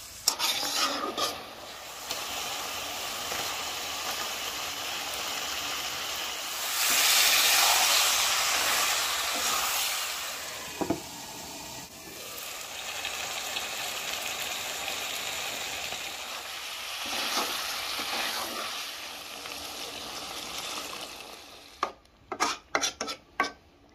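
Curry masala sizzling in a black iron kadai while a metal spatula stirs and scrapes through it; the sizzle swells louder for a few seconds partway through. Near the end there is a quick run of sharp knocks.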